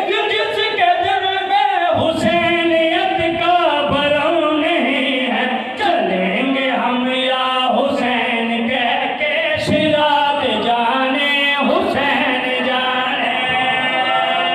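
Men's voices singing a devotional qasida together into microphones, with a sharp beat about every two seconds through most of it.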